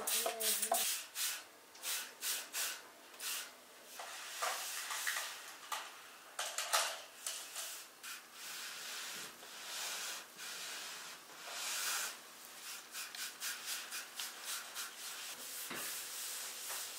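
Scrubbing a hard surface in the kitchen: repeated rubbing strokes, a few per second, running irregularly.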